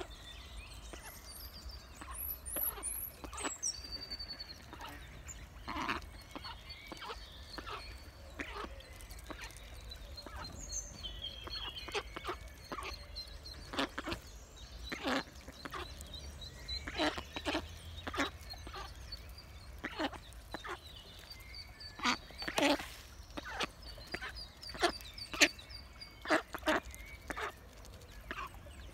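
Mallard hen giving short quacks, over a steady run of high, evenly spaced peeps from her ducklings. A small songbird chirps a few times near the start.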